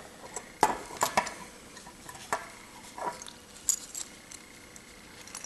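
Metal medals with enameled centres clicking and clinking in the fingers as they are picked up and turned over: a handful of short, irregular clicks.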